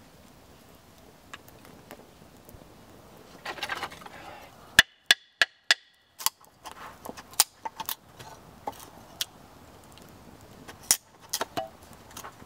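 Sharp wooden knocks and cracks as a knife is batoned down through a stick of split ash to split it smaller. About five quick strikes come roughly a third of a second apart near the middle, then scattered single knocks follow.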